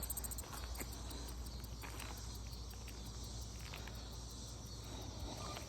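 Insects chirping in a steady, high, finely pulsing drone, with a few faint clicks.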